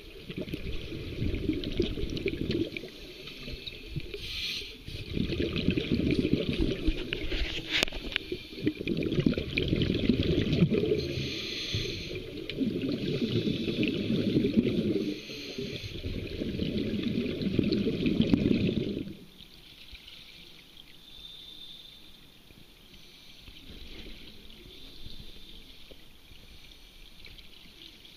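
Scuba exhalation bubbles gurgling out of a regulator, recorded underwater, in bursts every few seconds that each last one to three seconds. After about nineteen seconds the bubbling drops to a fainter, more distant level.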